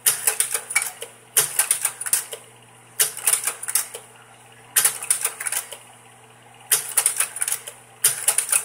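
Kodak Carousel 650H slide projector changing slides: six clattering bursts of quick clicks, about a second and a half apart, from the slide-change mechanism and tray. Under them runs a steady low hum from the projector's fan.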